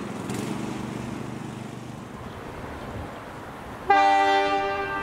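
Victorian Railways T class diesel locomotive T334 running with a low steady engine hum, then about four seconds in its horn sounds suddenly and loudly, held as a steady multi-note blast.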